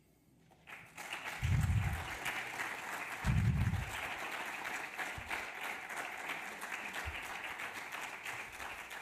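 Audience applauding, starting about a second in and keeping up steadily, with two dull low thumps in the first few seconds.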